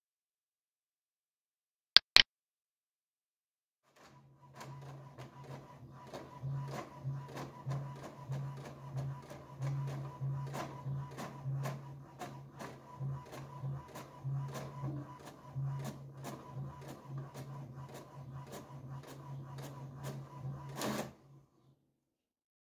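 HP DeskJet 2130 inkjet printer printing a page: a steady low motor hum with regular ticking about twice a second as the print head carriage and paper feed work. It starts about four seconds in, after two sharp clicks, and ends with a louder clack just before it stops.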